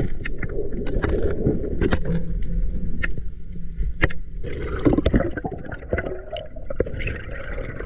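Underwater sound picked up by a diver's camera: a steady low rumble of water moving against the housing with scattered clicks and knocks as a crayfish is pulled from a rock crack. A brief rush of bubbly noise comes about halfway through.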